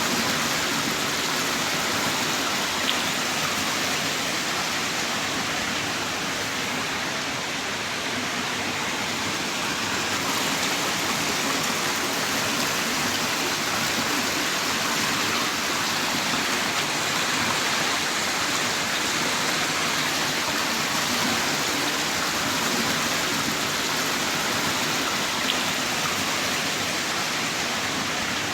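Heavy rain pouring down steadily: a dense, even hiss with no breaks, and a faint drop click now and then.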